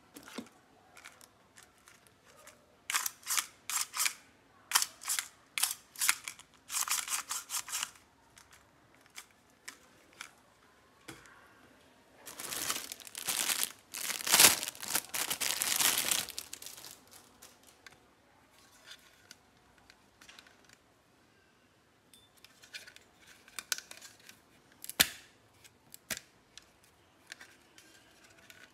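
Plastic packaging crinkling and rustling as packed items are handled: short bursts at first, then a longer, louder stretch of crinkling about halfway through as a plastic-wrapped item is lifted out, and a few sharp clicks and taps near the end.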